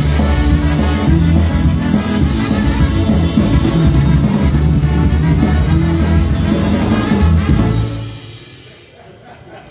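Live polka band with brass and drum kit playing a tune, which ends about eight seconds in.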